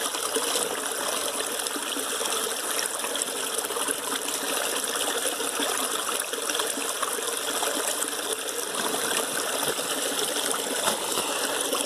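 Shallow creek water trickling steadily over stones and cobbles, close by.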